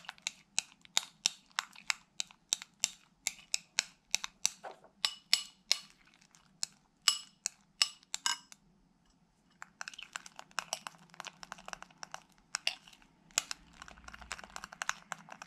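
Metal spoon stirring a thick shower-gel, shampoo, salt and baking-soda slime mixture in a glass bowl, clicking and scraping against the glass about three to four times a second. There is a short pause a little past halfway, then the stirring goes on with softer, quicker clicks.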